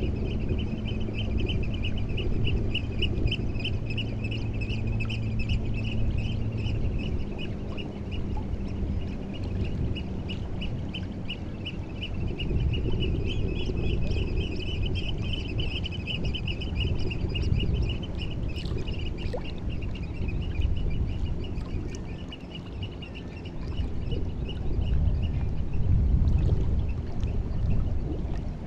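A bird calling in long runs of rapid, repeated high notes, over the low wash of water at the shore. A low steady hum runs underneath for the first several seconds.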